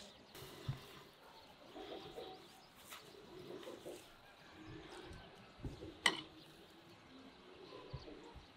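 Doves cooing softly in the background, with one sharp click about six seconds in.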